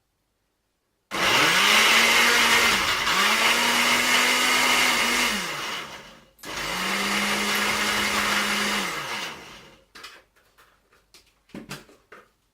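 Electric blender motor running in three pulses, spinning up and winding down each time: the second run follows almost straight after the first, the third after a short break. It is chopping a sticky mixture of dates, oats and cocoa with extra water added. A few light knocks follow near the end.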